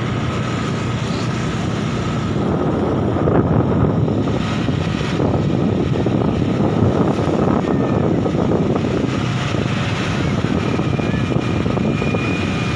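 Riding a motorbike through traffic: a steady mix of engine and road noise with wind buffeting the microphone.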